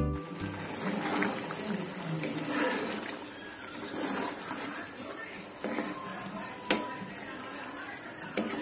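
Butter paneer gravy with coconut milk bubbling in a nonstick pan while a spatula stirs it, with liquid sloshing, scraping and light knocks against the pan, and one sharp knock about two-thirds of the way in.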